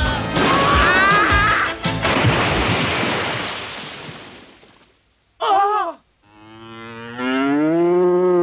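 Music breaks off into a loud noisy crash that dies away over about two seconds. After a short high cry, a cow gives one long moo that rises and then holds.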